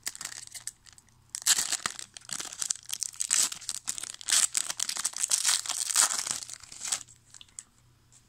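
Foil trading-card pack wrapper being torn open and crinkled by hand: a dense run of crackling from about a second and a half in, stopping about a second before the end.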